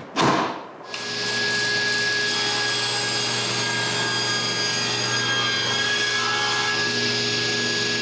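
Table saw running and cutting through a thick glued-up basswood block, a steady, even whine starting about a second in.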